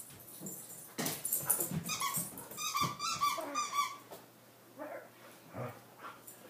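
Dog making play noises: a run of short, high-pitched whining calls from about two to four seconds in, then quieter.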